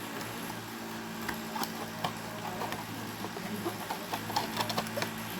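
A steady low mechanical hum, overlaid with a run of light clicks and taps that grow more frequent toward the end.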